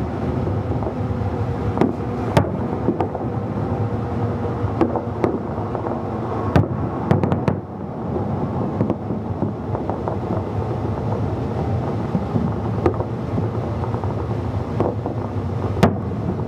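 New Year fireworks going off, with scattered sharp cracks and bangs over a steady rumble of wind on the microphone.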